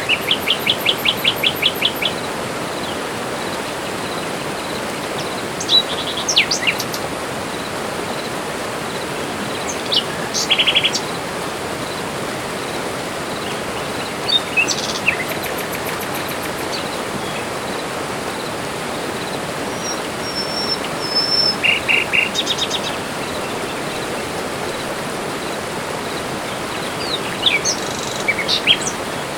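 Tropical forest birds calling over a steady background hiss. A quick run of about a dozen chirps opens it, then short calls and chirps come every few seconds.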